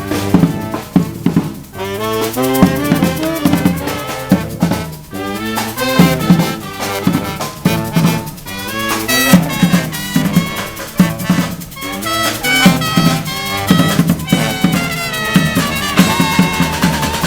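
Brass street band playing live: several horns, trumpet and saxophone among them, over a steady marching drum beat.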